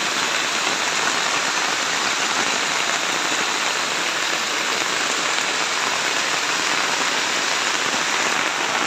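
Muddy rainwater gushing out of a concrete drain pipe and splashing over rocks under heavy rain: a steady rushing, hissing water noise with no breaks.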